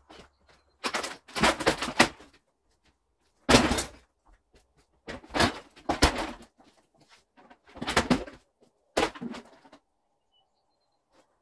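Demolition debris being handled and moved: five separate bursts of rough scraping and rattling, with short pauses between them.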